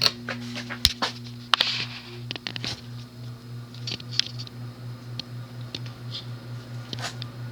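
Emerson Northwind 29-inch ceiling fan with a 153x10mm spinner motor, switched on with a sharp click and then running with a steady low hum that pulses about three to four times a second. Scattered light clicks and ticks come on top of the hum, mostly in the first few seconds. The fan is being restarted to run in reverse.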